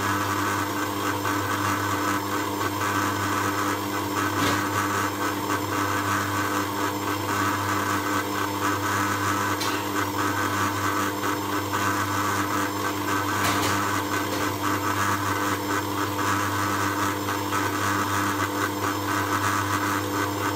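Electric stand mixer running steadily, beating brownie batter in its stainless steel bowl.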